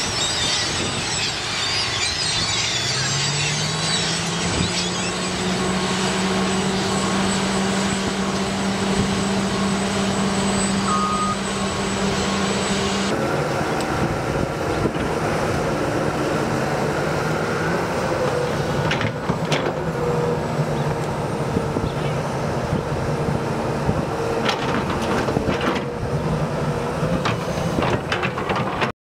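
A diesel landfill compactor's engine revs up and settles into a steady drone, with gulls calling over it. About halfway through it gives way suddenly to an excavator's diesel engine running, with a few sharp knocks in the second half.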